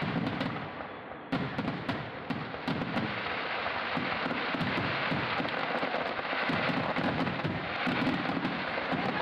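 A fireworks display: aerial shells bursting one after another with low booms. From about a second in, a dense crackle of many sharp pops runs on without a break.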